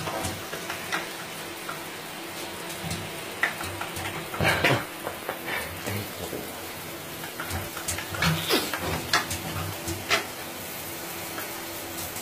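Shower water running steadily into a bathtub, with a hissing spray. A few brief louder noises break over it about four and a half seconds in and again between eight and ten seconds in.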